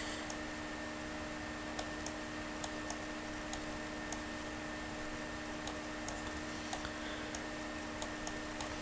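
Computer mouse clicking about fifteen times at irregular intervals, sharp short clicks, over a steady low electrical hum.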